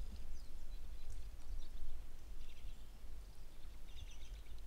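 Outdoor woodland ambience: a steady low rumble with short, high-pitched animal chirps coming several times.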